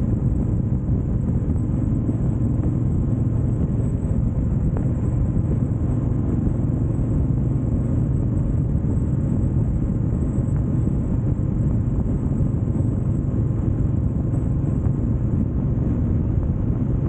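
Steady low rumble of wind and engine noise on a motorcycle on the move.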